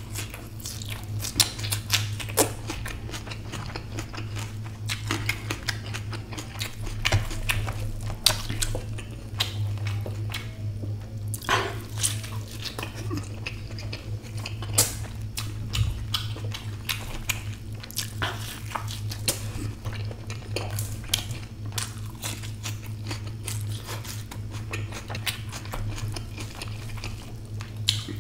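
Close-miked eating sounds: a person chewing egg omelette with many short wet mouth clicks and lip smacks, along with the omelette being torn by hand and light clinks on a steel plate. A steady low hum runs underneath.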